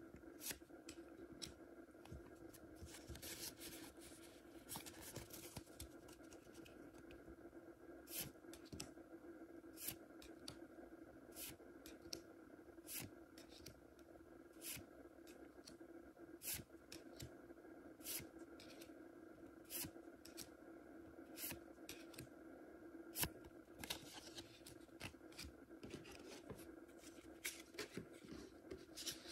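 Near silence: a faint steady hum of room tone, with sparse light clicks and brief rustling from hands handling a trading card.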